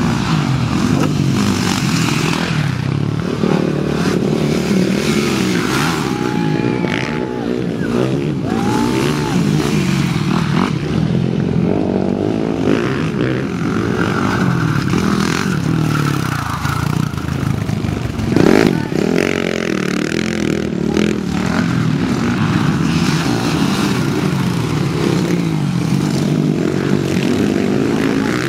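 Motocross motorcycle engines revving hard and easing off, several at once, their pitch rising and falling as the bikes race over the dirt track.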